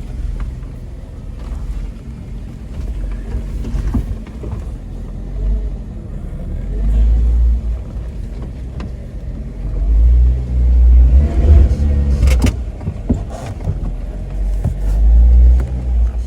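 Off-road Jeep running and driving: a steady engine drone under a heavy low rumble that swells and fades several times. A few sharp knocks come through, the loudest about twelve seconds in.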